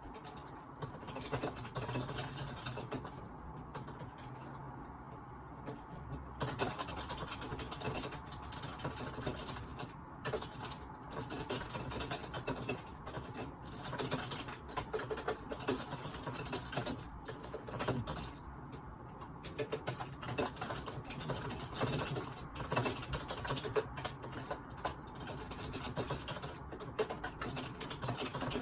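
Someone typing steadily on a computer keyboard: a dense, irregular run of key clicks with short pauses, picked up by a phone microphone.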